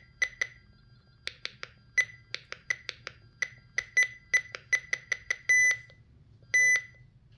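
RadioShack 12-259 weather alert radio giving short, high key-press beeps as its buttons are pressed in quick succession to set the clock, about two dozen beeps, often about five a second, with a short pause about six seconds in.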